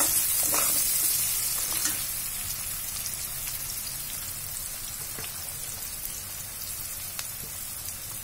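Chopped onions sizzling as they fry in hot oil in a pan, with a few scrapes of a steel spatula in the first couple of seconds; the sizzle then settles to a steady, slowly quieter hiss.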